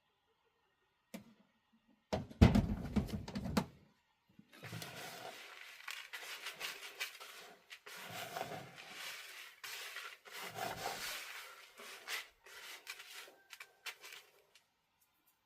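A click, then a short burst of heavy knocks and thumps, followed by about ten seconds of uneven rustling and scraping: handling noise as containers or feed are moved about.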